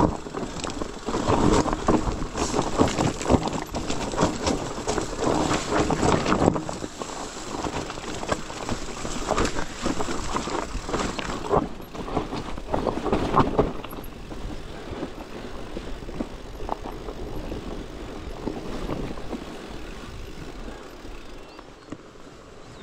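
Loaded bikepacking bike clattering over rough, rocky trail: dense rattling and knocks, loudest over the first few seconds and again around the middle, then easing to a quieter rumble.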